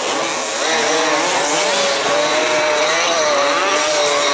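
Several 1/5-scale RC off-road cars' small two-stroke petrol engines buzzing at high revs, pitches rising and falling and overlapping as the cars race around the track.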